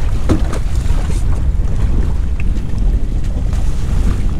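Wind buffeting the microphone, a steady low rumble, over the wash of choppy open water.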